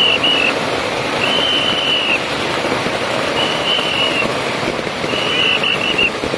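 Dense, continuous crackling of strings of firecrackers going off. A whistle cuts through it in short steady blasts, about one every one and a half to two seconds.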